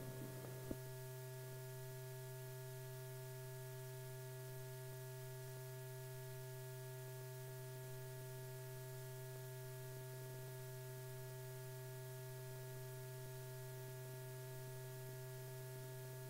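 Steady electrical hum with faint hiss in an old film soundtrack, with one small click under a second in; no other sound.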